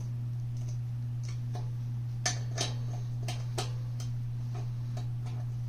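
Sharp metallic clicks of a screwdriver and adjustable wrench working small machine screws on a thin steel bed-frame corner brace, faint at first and louder from about two seconds in, roughly three a second. A steady low hum runs underneath.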